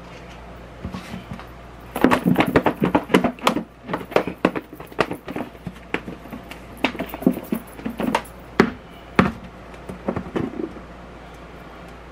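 Raw chicken wings being shaken in breading inside a plastic breader shaker bowl with a snap-on lid. The pieces knock and rattle against the plastic in fast, uneven thumps, starting about two seconds in and stopping near the end.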